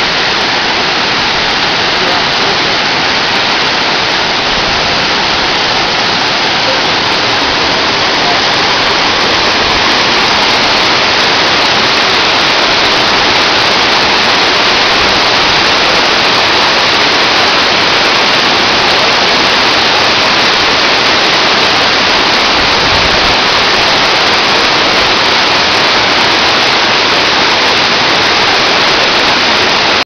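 Loud, steady rush of white water from a rocky mountain stream cascading over boulders below a tall waterfall. It swells slightly about ten seconds in.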